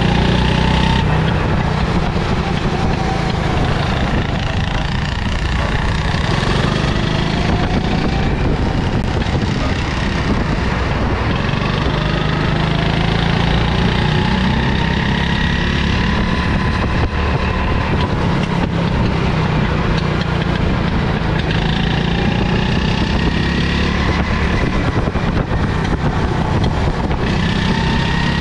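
Rental go-kart's small petrol engine driven hard. Its pitch climbs as it speeds up and drops back as it slows, several times over, with a steady loud low rumble underneath.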